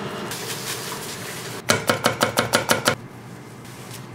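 A knife chopping quickly on a wooden cutting board, about ten rapid strokes in just over a second, after a steady hiss for the first second and a half.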